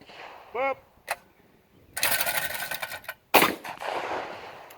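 A second of metallic clicking and rattling, then about three seconds in a single loud shotgun shot that rings out and dies away over about a second.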